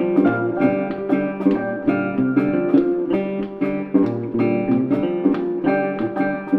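Background music: acoustic guitar picked and strummed with a steady rhythm.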